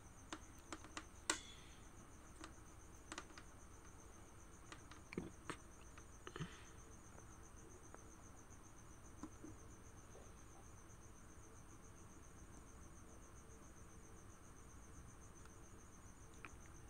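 Faint, steady high trill of a cricket under near-quiet room tone, with a few soft clicks and taps in the first several seconds from multimeter test probes being handled against battery terminals.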